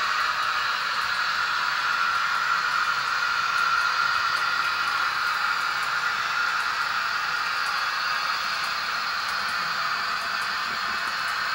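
Model trains running on the layout track: a steady whirr and hiss of wheels on the rails and small electric motors, a little louder about four seconds in, then easing off.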